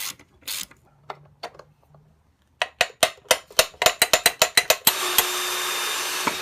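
Rapid ratcheting clicks, about five a second, of a tool being worked on the skateboard's hardware. Near the end a power tool runs steadily for about a second and a half, then cuts off suddenly.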